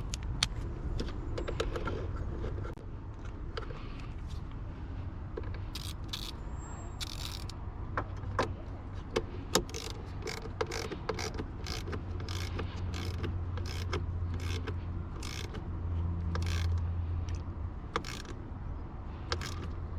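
Irregular clicks and taps of hand tools and metal parts being handled under the hood during a battery swap, over a steady low hum.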